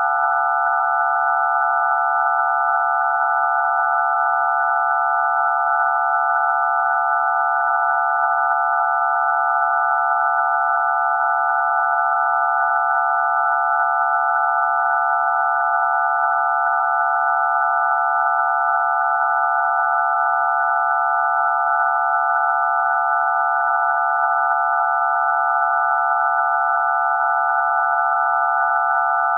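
DTMF telephone keypad tones for the digits 0 to 9 all sounding at once as one steady electronic tone, a cluster of pure pitches held without change.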